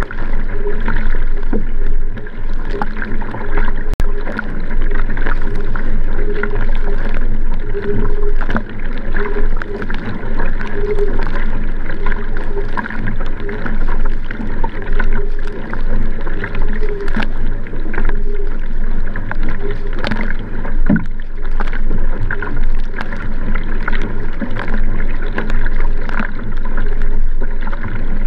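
Water rushing and splashing along the hull of a Nelo Vanquish 3 sprint racing kayak paddled hard at race pace. The paddle blades catch and pull through the water in a steady, continuous stroke rhythm, heard close up from the kayak's rear deck.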